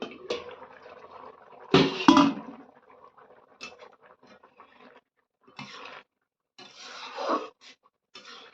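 Liquid splashing into a metal cooking pot, with clatter of a metal utensil against the pot loudest about two seconds in, then a few short scraping or stirring sounds.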